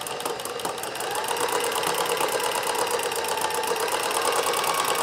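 Singer sewing machine running a Singer zigzag attachment with a cutwork blade needle, stitching steadily through fabric to cut the cross threads for drawn-thread work. The motor picks up speed about a second in, with a rising whine.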